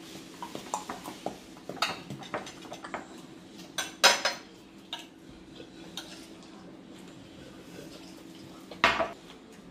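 Forks and cutlery clinking and scraping on plates, with a scatter of small clicks in the first few seconds and a few louder clinks about four seconds in and near the end.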